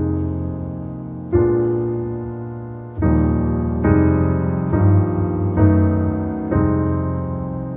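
Solo piano playing slow sustained chords. A new chord is struck about once a second and left to ring out and fade.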